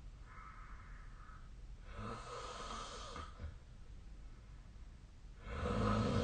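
A sleeping person snoring: a soft hissing breath, then a rougher, louder breath, and near the end a loud snore with a low rattle, the loudest sound.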